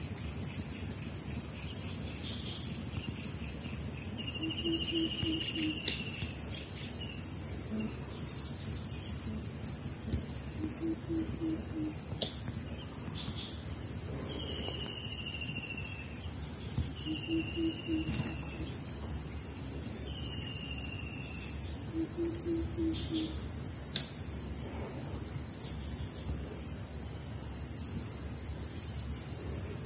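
Insects shrilling steadily and high-pitched, with a faster pulsing insect chorus beneath. A few short falling whistles from birds come through in the middle, and a low call of four or five quick notes repeats about every six seconds.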